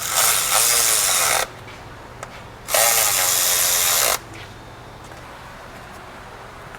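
Electric power tool, of the drill or ratchet kind, run in two bursts of about a second and a half each, its motor pitch sweeping within each burst.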